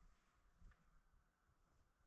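Near silence: faint room tone with a soft low bump about two-thirds of a second in.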